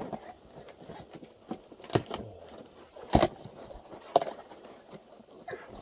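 Handling noise from unpacking a box of wind generator parts: three sharp knocks about a second apart near the middle, over small crackling and rustling sounds.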